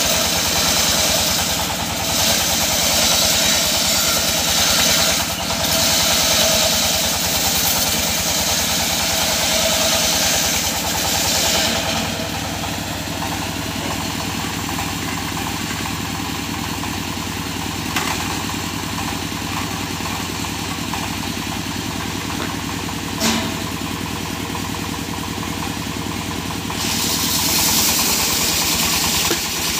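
Circular saw bench driven by a stationary engine, its blade ripping lengthwise through a teak log for the first twelve seconds or so and again near the end. In between, the engine runs on steadily with the blade spinning free, broken by two sharp knocks.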